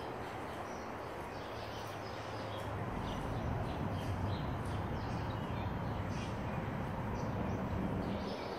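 Outdoor ambience by a river: a steady noise whose low rumble grows louder about three seconds in, with scattered short bird calls over it.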